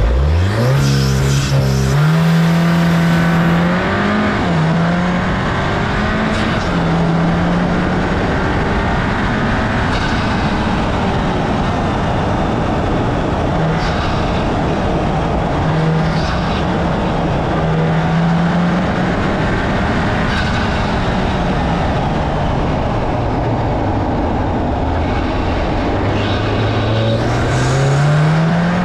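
Turbocharged EA888 Gen 4 2.0-litre four-cylinder with a Racingline cold air intake and turbo inlet, heard under hard acceleration at the start with the pitch climbing quickly and intake rush on top. It then runs at part throttle with revs rising and falling, and pulls hard again near the end.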